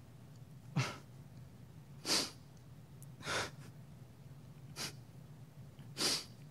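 A man sniffling and drawing short breaths through his nose about five times, about one every second and a half, while crying.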